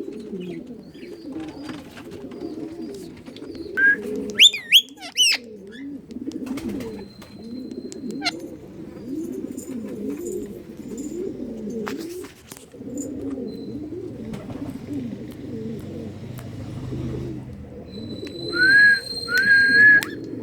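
Pigeons cooing continuously in overlapping warbles. Loud, shrill bird calls break through: rapid rising squawks about four seconds in, and two held whistles near the end.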